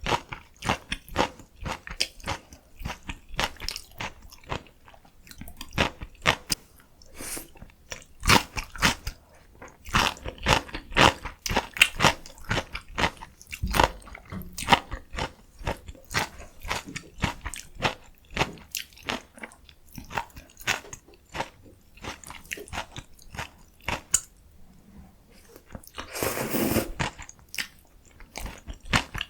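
Close-miked eating sounds: a person chewing and biting food, with many quick, irregular crunches. About three quarters of the way through, one louder, longer noisy mouth sound lasts about a second.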